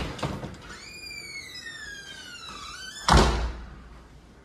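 A French patio door swinging shut: its hinge gives a long squeal, falling in pitch, for about two seconds, then the door shuts with a heavy thud about three seconds in.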